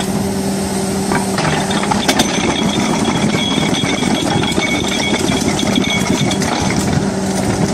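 Large crawler excavator's diesel engine running under load while its single-shank ripper tooth drags and breaks through rock. Steel grinds on stone with rough scraping, cracks and clinks, and a high steady whine sounds through most of it.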